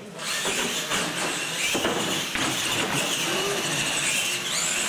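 Radio-controlled monster trucks racing on a concrete floor: a loud, steady mix of electric-motor whine and tyre noise that comes up quickly at the start as they leave the line.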